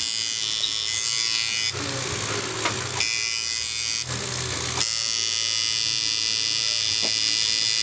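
Electric tattoo machine buzzing steadily as it works ink into skin. Twice in the first half the steady buzz gives way for about a second to a rougher hiss.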